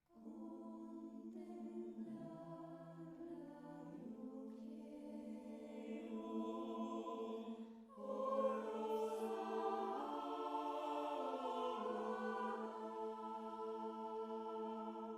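Mixed a cappella choir of sopranos, mezzo-sopranos, tenors and baritones singing slow, sustained chords. A brief break comes about eight seconds in, and the choir then re-enters louder on the piece's final long-held chord.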